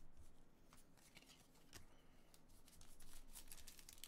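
Quiet handling of trading cards and a foil-wrapped card pack: soft rustles and light taps, growing busier about three seconds in.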